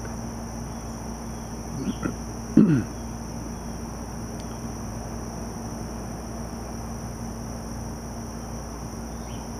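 Steady high-pitched chorus of garden insects droning without a break. About two and a half seconds in, a short sound slides down in pitch.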